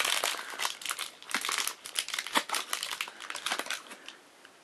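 Crinkly packaging wrapper of a blind-bag mystery-mini figure being crumpled and torn open, a dense run of irregular crackles that stops near the end.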